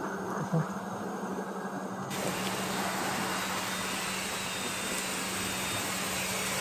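Steady background noise: an even hiss with a constant low hum underneath.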